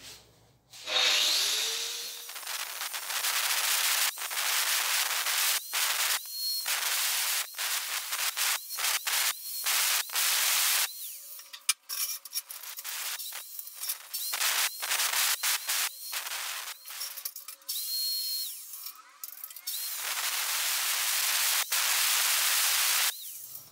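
Angle grinder with a diamond disc cutting chases into a brick wall: a harsh grinding hiss that starts and stops abruptly many times, with a faint motor whine underneath.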